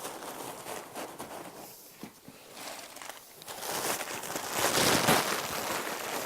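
Packing paper rustling and crinkling as it is pushed down the sides of a cardboard carton, loudest in a burst near the end.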